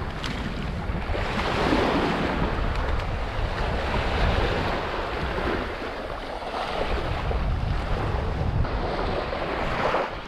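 Small waves washing up onto a sandy beach, swelling twice, with wind buffeting the microphone.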